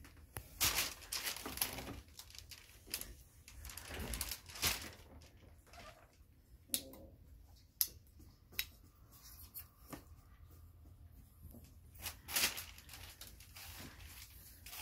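Paper covering the floor crinkling and rustling in a few irregular bursts, with scattered light clicks and taps.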